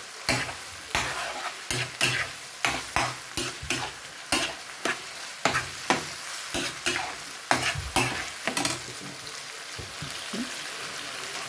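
A spoon stirring salt fish and vegetables frying in oil in a nonstick frying pan, each stroke a scrape or knock against the pan, one or two a second, over the steady sizzle of the oil. The stirring stops about nine seconds in, leaving only the sizzle.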